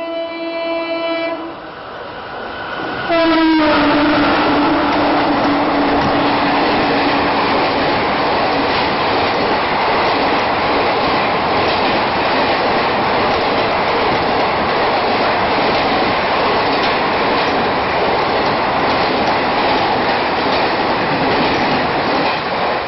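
WCAM-1 electric locomotive's horn sounded hard as the express rushes past: a blast that breaks off, then a louder one about three seconds in whose pitch drops as the locomotive passes and holds for several seconds. After it comes the loud steady rush of the coaches going by at speed, with wheel clatter on the rails, until it falls away near the end.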